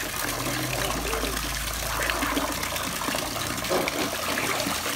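Water splashing and sloshing in a filled inflatable paddling pool as children move about in it, with a garden hose spraying a steady stream of water into the pool.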